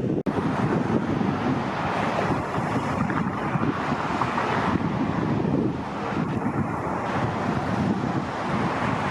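Wind buffeting the microphone: a steady rushing noise that drops out for an instant just after the start.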